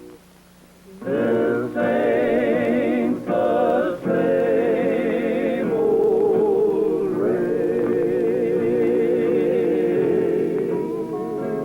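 A vocal group singing a slow, wordless close harmony with vibrato on long held notes, entering about a second in after a brief lull.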